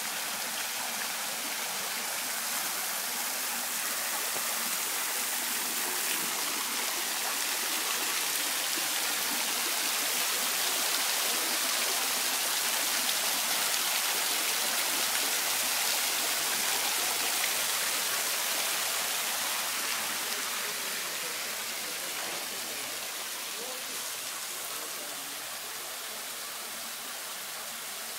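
Water falling in drops and streams from the rims of a tiered, mushroom-shaped fountain's dishes and splashing into its basin: a steady splashing rush, somewhat louder in the middle.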